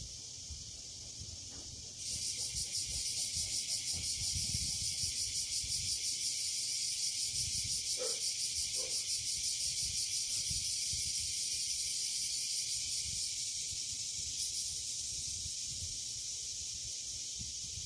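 Chorus of cicadas: a high, shrill buzzing with a fast steady pulse that swells in about two seconds in and carries on. Two short faint calls sound close together a little before the middle.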